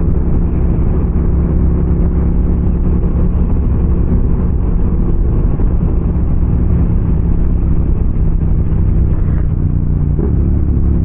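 Yamaha MT-07's parallel-twin engine running steadily under way, over rushing wind. The engine pitch glides up briefly near the end.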